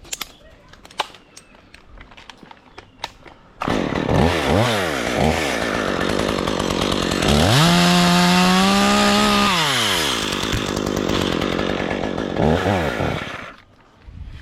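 Two-stroke chainsaw starting after a few light knocks. It is blipped twice, held at high revs for about two seconds, dropped back, blipped once more, then shut off.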